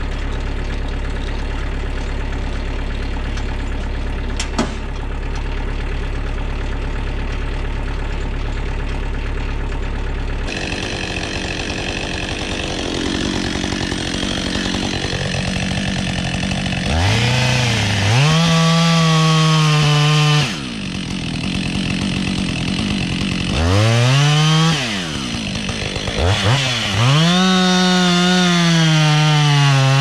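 A tractor's diesel engine idles steadily for about the first ten seconds. Then a chainsaw takes over, running at low revs before revving up to full throttle in three long bursts as it cuts into the trunk of a standing red pine, the last burst still going at the end.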